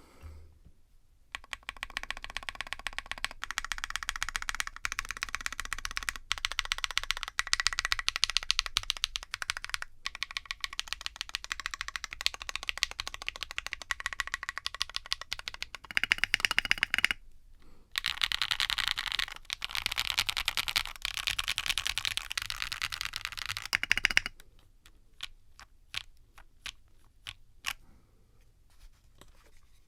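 Fast, continuous typing on a budget 60% keyboard, gummy o-ring mounted on silicone cord, with a 4-flex-cut PCB, a Delrin full plate and felt plate foam. There is a short break partway through. In the last few seconds there are only scattered single keystrokes.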